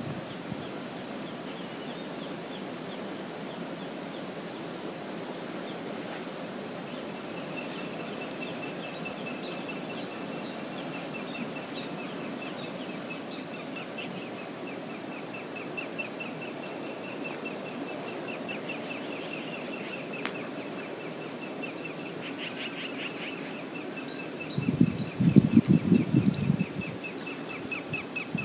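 Outdoor natural ambience with a steady rushing noise, sharp high bird chips every couple of seconds, and a thin high trill through the second half. Near the end comes a louder burst of low noise lasting about two seconds.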